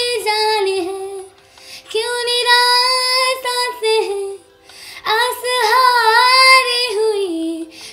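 A young girl singing a Hindi film song, in three long held phrases with gliding, ornamented pitch and short breaks between them.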